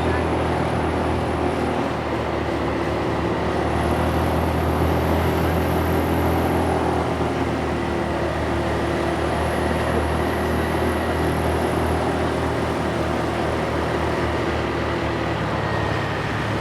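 Vehicle engine running steadily with road traffic noise, a low even hum with no horn sounding.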